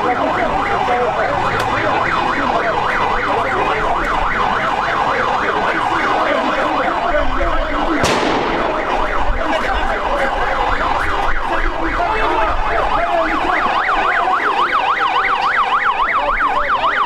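Several electronic sirens yelping over one another in fast up-and-down sweeps, with one sharp bang about eight seconds in.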